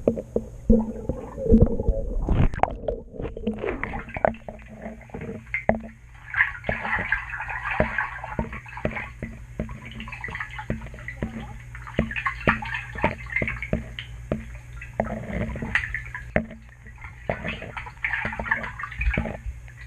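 Water sloshing and gurgling around a camera held under the surface, with many short clicks and knocks over a steady low hum.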